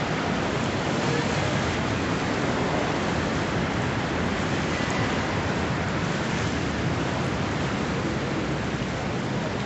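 Steady rushing of running river water, an even noise with no breaks or distinct events.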